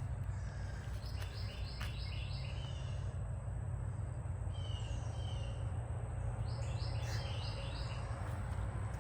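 Birds singing in woodland: a quick run of several short falling notes about a second in and again near the end, with short whistles between, over a steady low rumble.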